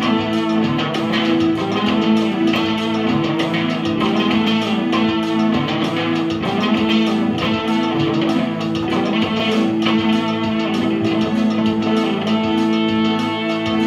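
Strat-style electric guitar strummed through a small practice amp, with a Casio electronic keyboard holding steady chords underneath; no drums.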